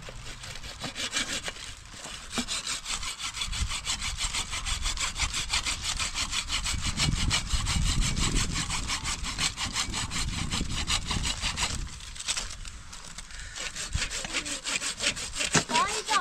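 Saw cutting through wood in rapid, even strokes, with a short pause about twelve seconds in before the sawing picks up again.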